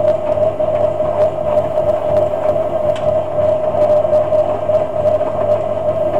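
Hotpoint WM22A Aquarius 1000 front-loading washing machine running its wash, the drum turning fast. The motor gives a steady, high whine over a low hum, with water and laundry sloshing in the drum.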